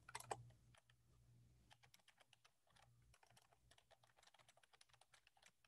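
Faint computer keyboard typing: a quick, uneven run of soft keystrokes.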